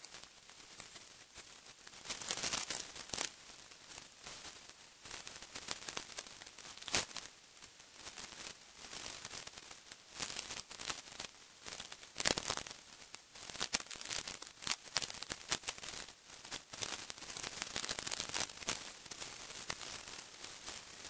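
Tent fabric, a sleeping bag and camping gear rustling and crinkling as they are handled and packed away, with irregular sharp crackles.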